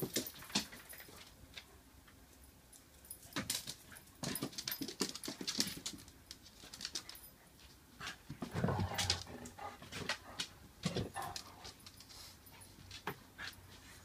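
Dogs moving about with scattered clicks and knocks, and a dog whimpering briefly a little past the middle.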